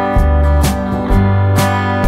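Background instrumental music led by guitar, with a steady beat of about two notes a second over a strong bass line.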